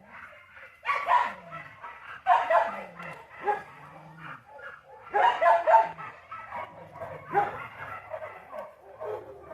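A dog barking and yipping in loud bursts, with softer whining calls between them.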